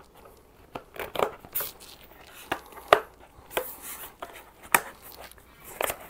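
Handling noise from a car seat's fabric cover and plastic shell: irregular rustling with scattered light clicks and scrapes as a strap is worked through the back of the seat, the sharpest clicks about a second in, near the middle and about three-quarters of the way through.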